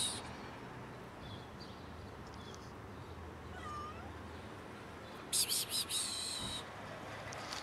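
Cat meowing: a short run of high meows about five and a half seconds in, with a faint short call a couple of seconds earlier.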